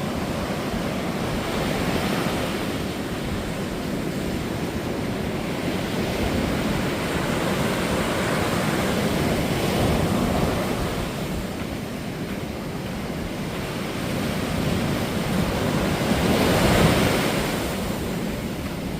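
Sea waves breaking and washing up on a sandy beach, surging and easing in several swells, with the loudest breaker near the end; some wind buffets the microphone.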